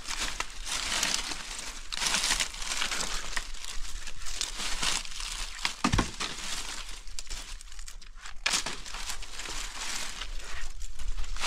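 Irregular rustling and crinkling of something being handled, with a sharp click about halfway through.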